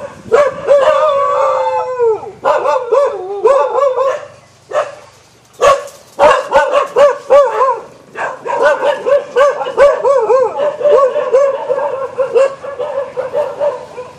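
An animal calling: one long drawn-out call that falls away at its end, then a fast run of short rising-and-falling calls, several a second, with a few sharp knocks about halfway through.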